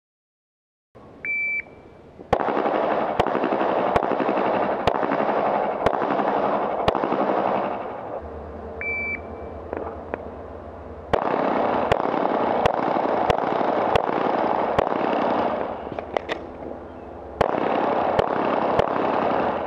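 Pistol shots fired in steady strings at a defensive pistol match, over a loud steady rushing noise, after a short high electronic shot-timer beep; a second timer beep sounds about nine seconds in.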